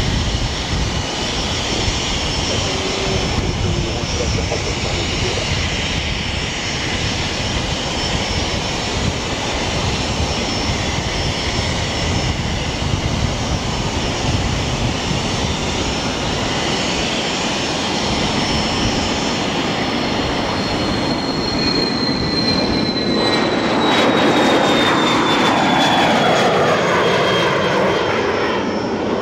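Jet aircraft engines running loud and steady, with a high whine on top. Over the last several seconds the whine slowly falls in pitch while the engine noise grows louder and rougher.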